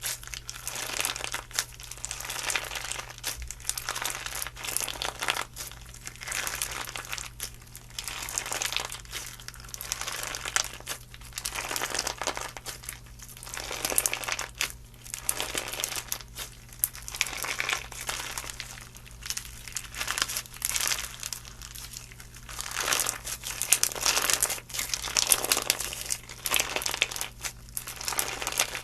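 Slime being squeezed and worked by hand, making a continuous irregular crackling of small pops that swells and fades in waves. A steady low hum sits underneath.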